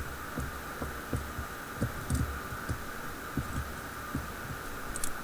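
Picking a four-pin Brinks 60 mm laminated padlock: irregular soft low knocks of the lock and tools being handled, with a few faint light clicks, over a steady background hum.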